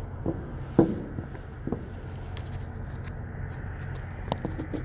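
Boots knocking on a trailer's metal rear step and floor as a person climbs up into an empty trailer: a few separate knocks, the loudest about a second in, over a steady low hum.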